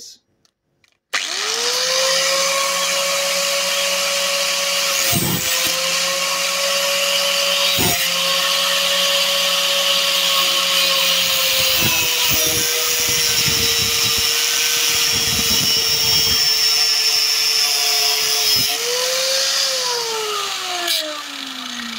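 Angle grinder fitted with a homemade cardboard disc switches on about a second in and spins up to a steady whine, then cuts through a thick piece of wood, its pitch sagging a little under the load. Near the end it is switched off and winds down with a falling whine.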